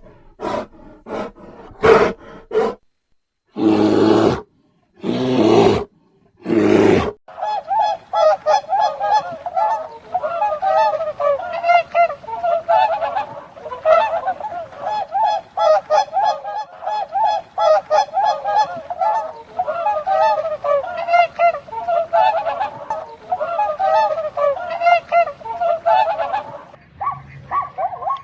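A flock of large birds honking: a few separate loud calls with short silences between them, then from about seven seconds in a dense, continuous goose-like chorus of many overlapping honks, which stops abruptly shortly before the end.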